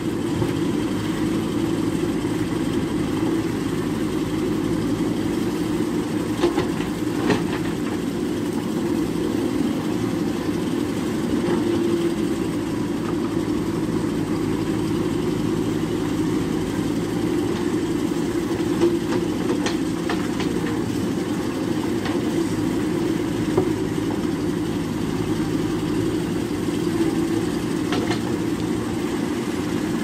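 JCB backhoe loader's diesel engine running steadily as the backhoe digs, with a few short knocks and scrapes from the bucket working soil and stones.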